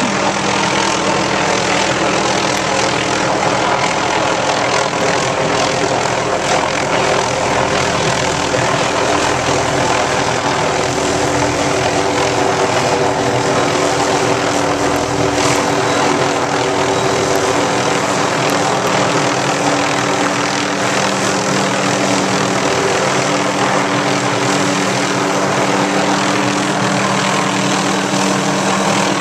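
Helicopter running steadily, its engine and rotor giving a loud, even drone with a few steady low tones.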